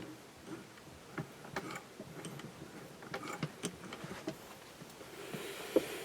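Scattered light clicks and taps of metal parts and fabric being handled at the Singer 201K sewing machine's rolled-hem foot, irregular rather than the steady run of stitching, with one sharper click near the end.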